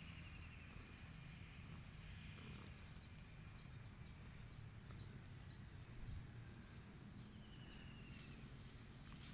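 Domestic cat purring faintly and low while being stroked and scratched on the head.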